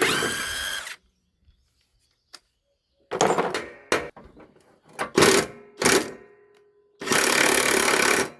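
Avhrit 21-volt 1/2-inch cordless impact wrench run in several short bursts with gaps between, the last one the longest, backing off a freshly loosened rusted nut.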